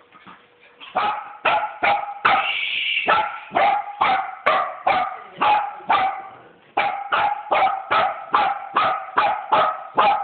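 Miniature dachshund play-barking rapidly during a tug of war over a toy, about three sharp barks a second, starting about a second in, with one longer, higher-pitched drawn-out yelp about two seconds in.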